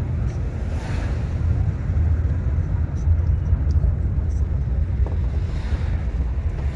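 Car driving along: a steady low rumble of engine and road noise, with two brief swells of rushing noise, about a second in and near the end.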